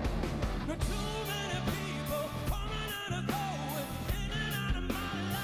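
Rock band playing live: drums, electric guitar and bass under a male lead singer's vocal.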